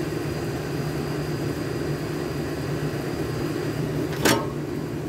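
A steady mechanical drone, with one short sharp click about four seconds in.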